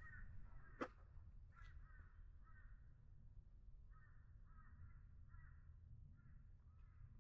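A bird calling over and over in quick, chattering phrases, several times a second, with a single sharp click just under a second in.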